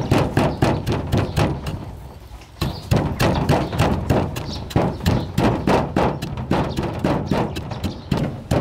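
A wooden pestle pounding in a wooden mortar, crushing ingredients for a sauce: a string of dull thuds about four a second, with a short pause about two seconds in.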